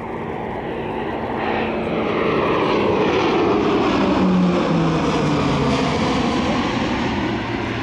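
Northrop Grumman E-2C Hawkeye's twin Allison T56 turboprops in a flyby. The sound grows louder to a peak about halfway through, and the propeller tone drops in pitch as the aircraft passes, then fades.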